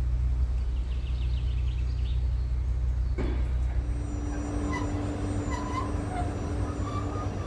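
Diesel locomotive engine idling with a low, steady rumble. After a cut about three seconds in, a standing Sr1 electric locomotive gives a steady hum.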